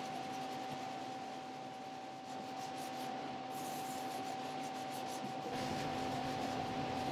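A dry paper towel rubbing back and forth over a wooden fence, wiping and smearing wet wood glue squeeze-out, with a steady hum behind it.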